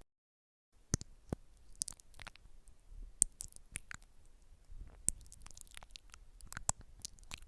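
Close-miked ASMR spa trigger sounds: after a brief dead silence, an irregular run of sharp clicks and taps with soft, squishy crackling between them.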